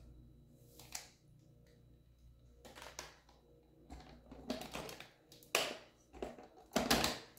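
Plastic lid being handled and pressed onto a blender pitcher full of fruit and ice: scattered clicks and knocks, sparse at first, then closer together and louder toward the end as the lid goes on.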